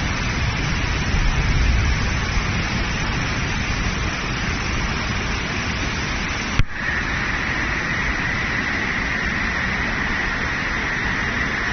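Steady rushing roar of muddy floodwater in spate. About two-thirds of the way through, the sound cuts abruptly to another steady rush with a thin, steady high tone over it.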